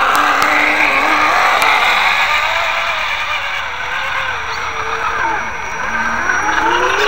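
Electric motors and gearboxes of radio-controlled rock crawler trucks whining as they drive over gravel, the whine rising and falling in pitch with the throttle, over a steady hiss.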